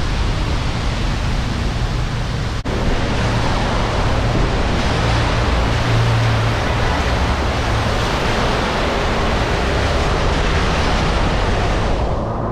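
Wind rushing over the microphone of a sport bike moving at speed, with a low steady engine hum underneath and a brief dropout about two and a half seconds in.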